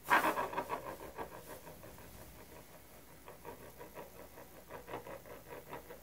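Small metal spinning top, the TEC Accessories Orbiter fidget toy, spun onto a laminate countertop: its tip chatters against the surface in a fast, irregular run of ticks, loudest as it is launched and then going on more softly with small swells.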